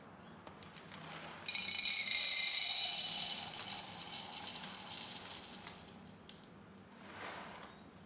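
Whole coffee beans poured from a bag into a coffee grinder's clear hopper: a sudden rattling rush that starts about one and a half seconds in, is loudest at first and then thins out as the pour ends, followed by a single click.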